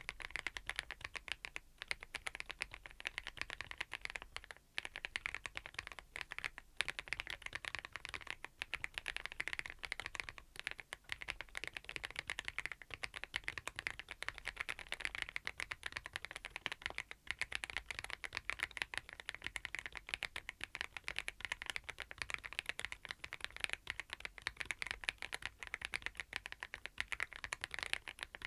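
Fast, continuous typing on a Thinkway TV108 full-size mechanical keyboard fitted with Aurora Ice Cream switches: a steady stream of rapid keystroke clacks.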